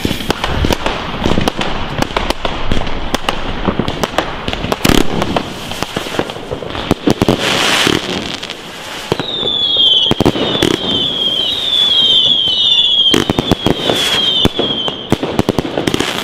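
Katan Cowboy Fan firework battery firing: a rapid string of launch thumps and bursts with crackle. From about nine seconds in comes a run of short falling whistles, one after another for about six seconds, between the shots.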